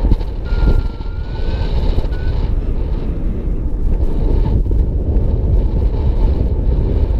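Wind buffeting the microphone in paraglider flight, a steady low rumble. A paragliding variometer's electronic tone rises slightly about half a second in, and a short beep follows about two seconds in.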